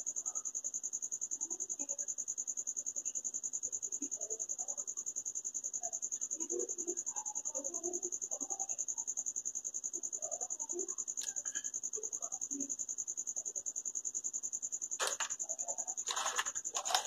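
Faint soft rustles and taps of hands handling Oreo sandwich cookies, over a steady high-pitched pulsing trill. Near the end come a few sharp crinkles of the plastic Oreo packet wrappers being handled.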